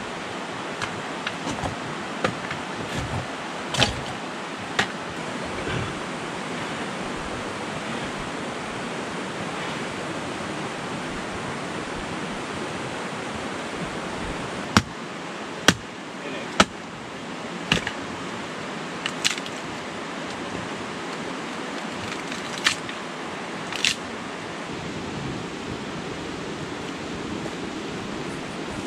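Steady rushing of a stream, with a dozen or so sharp clicks or snaps scattered through it.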